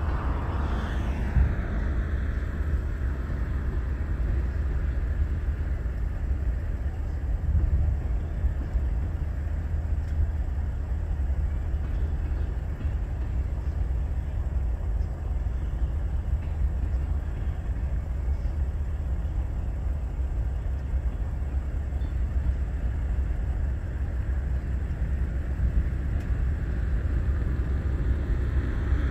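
A steady low outdoor rumble, with a short falling sweep about a second in and a rising one near the end.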